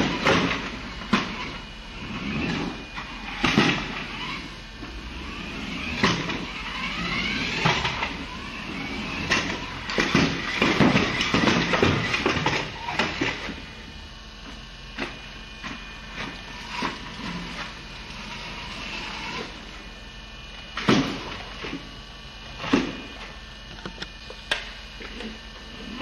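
Remote control car's small motor whirring in uneven runs, its pitch rising and falling, with sharp knocks and clatters as the car moves about. The activity is busiest in the first half and thins out later to scattered knocks.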